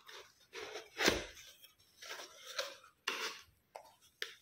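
Gift boxes and wrapping being handled: a series of short rustles and scrapes, with one sharper knock about a second in.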